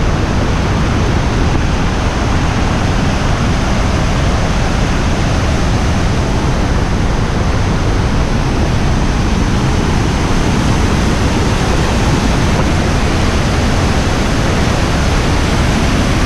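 Loud, steady rush of the Pha Suam waterfall heard up close, an unbroken wash of falling water.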